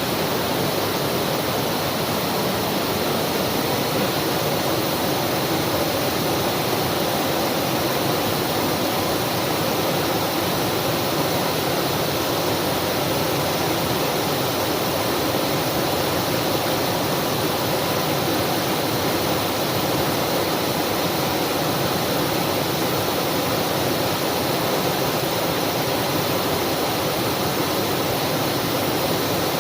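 Waterfall: water pouring and flowing in a steady, unbroken rush.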